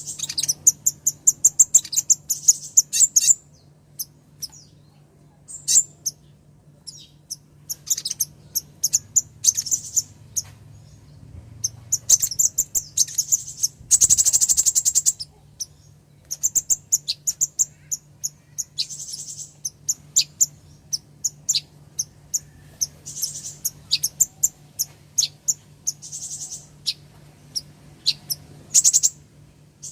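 Female sunbird (kolibri ninja) calling: bursts of rapid, high-pitched chirps and short trills repeated throughout, with one longer dense trill about halfway through. A faint steady low hum lies underneath.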